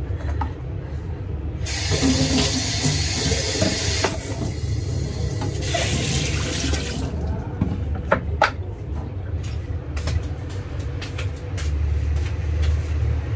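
Kitchen tap running into the sink for about five seconds, then a couple of sharp knocks like dishes or utensils set down, over a steady low hum.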